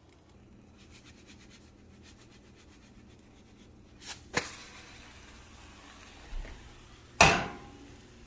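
Faint sizzling of an omelet in a nonstick frying pan, then two sharp knocks about four seconds in as the pan is flicked to flip the omelet. Near the end comes a loud, ringing clank as the pan is set down on the gas stove's grate.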